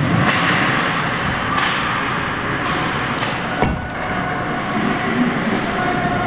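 Ice hockey practice rink ambience: skates scraping across the ice over a steady noisy din, with one sharp crack of a puck about three and a half seconds in.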